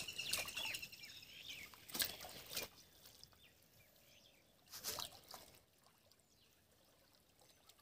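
Pond water sloshing and splashing as people wade through it and draw a mesh net, with a few louder splashes about two seconds in and again near the middle. Faint bird chirps in between.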